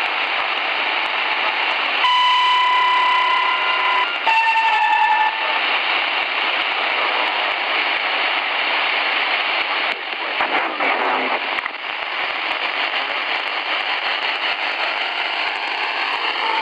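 Portable shortwave receiver tuned to the 2130 kHz railway radio band, its speaker giving a steady hiss of static. About two seconds in, a steady tone sounds for two seconds, followed by a shorter, slightly lower two-step tone.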